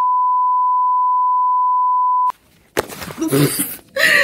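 A steady single-pitch test-tone beep of the kind played with television colour bars (bars and tone), held loud and unchanging and then cut off suddenly a little over two seconds in. Short noises and a brief voice sound follow near the end.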